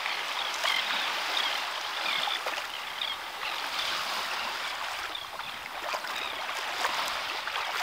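Shallow seawater lapping and trickling at the beach's edge: a steady, splashy wash. A few short high chirps sit over it in the first few seconds.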